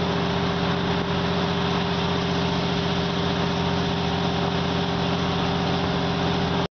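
Moving train heard from a carriage window: the steady drone of its diesel engine over the rumble of wheels on the track. The sound cuts off suddenly near the end.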